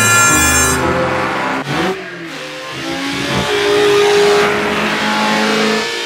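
Race car engines revving hard, the pitch swooping up and down and then holding a steady high drone as the cars race flat out.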